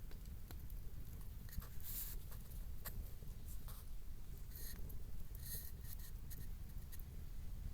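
Wood fire crackling: irregular small pops and snaps, with a few brief hisses, over a low steady rumble.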